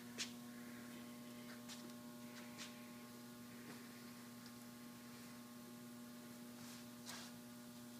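Steady electrical mains hum, with a few faint clicks from a tap being turned by hand into aluminium.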